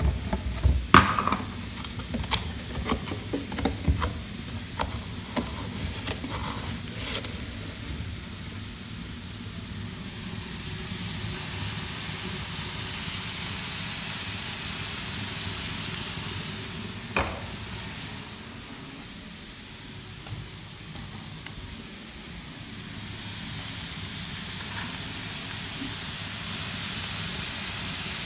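Chopped bird meat stir-frying in a wide metal wok, sizzling steadily, the sizzle swelling and easing. A run of clinks and knocks comes in the first several seconds, and one more knock comes about two-thirds of the way through.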